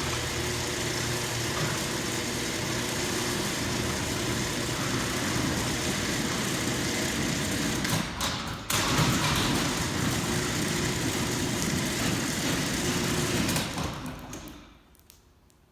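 Overhead garage door running on its opener: a steady motor hum with the rumble of the door travelling, broken briefly about eight seconds in, then fading out near the end. The door's cables and moving parts have just been lubricated.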